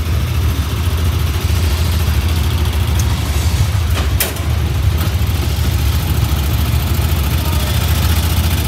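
Side-by-side UTV's engine running steadily at low speed as it pushes the race car and climbs the loading ramp into the hauler, with a sharp knock about four seconds in.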